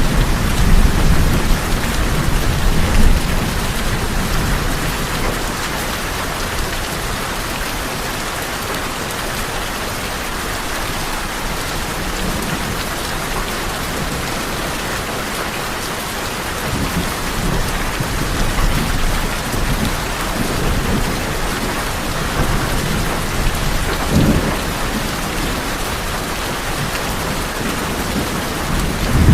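Steady rain on tin roofs, with low thunder rumbling in the first few seconds that fades, then brief low rumbles return later on.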